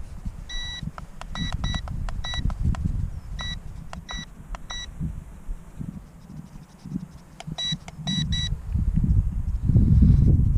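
RC transmitter beeping as its mode buttons are pressed to switch speed and gyro settings: about ten short, high beeps, seven spread over the first five seconds and three in quick succession near eight seconds. A low wind rumble on the microphone runs underneath.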